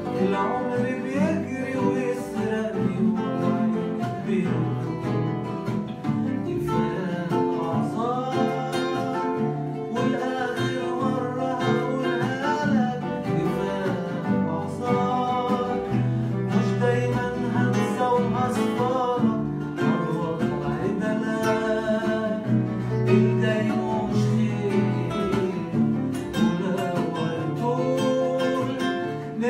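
A man singing an Arabic pop song, accompanied by several acoustic guitars strumming and plucking chords.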